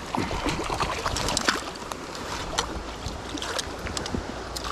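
Irregular splashing and sloshing of water close by, over the steady rush of a small river.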